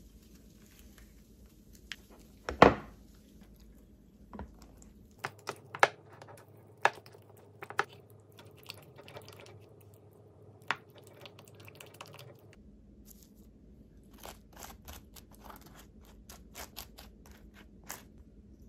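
Kitchen handling sounds: a wooden spoon scooping and stirring thick Greek yogurt in a glass bowl, with scattered clicks and knocks of the spoon against the bowl. The loudest knock comes about two and a half seconds in.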